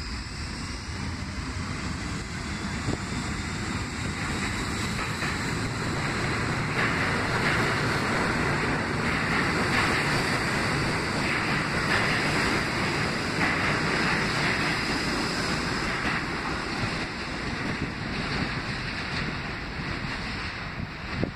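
R68 subway train running into and along the platform on the near track: the wheel and track noise and rumble build up, stay loud for several seconds as the cars go by, then ease off.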